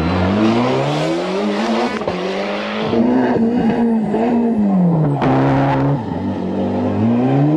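Ford Escort RS Cosworth rally car's turbocharged four-cylinder engine driven hard, its pitch climbing under acceleration and dropping several times at gearshifts and lift-offs, with a sharper fall about five seconds in and another climb near the end.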